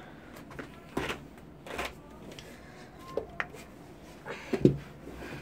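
Paper handled and folded: short scattered rustles and crinkles as origami paper is creased, the loudest near the end.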